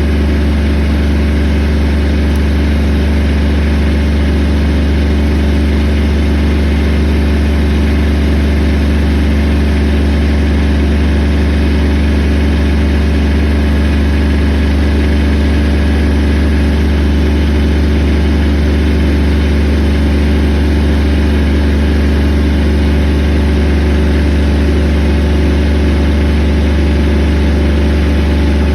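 Engine of a log-handling machine running at a steady speed: a constant low hum that holds one pitch throughout.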